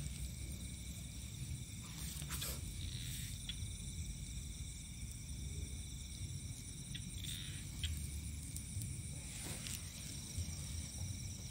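Night chorus of crickets and other insects: a steady, high chirring at several pitches at once, over a low rumble, with a few soft rustles.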